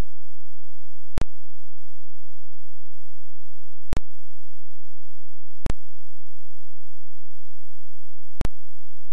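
Four sharp clicks where the recording is cut, with faint irregular low thuds between them.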